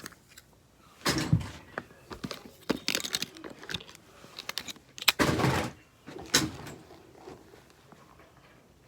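Fidget toys being handled and put away: irregular rustles, clicks and knocks of plastic and silicone toys, with two louder scraping rustles about a second in and about five seconds in.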